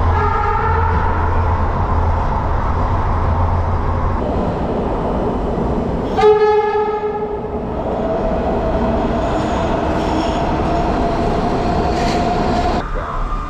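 MARTA Breda CQ312 rapid-transit car's horn sounding one short blast of about a second, over the running noise of the train. A steady whine follows and cuts off shortly before the end.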